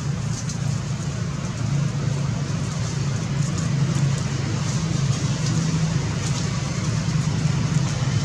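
Steady low rumble with a hiss over it and faint ticks now and then.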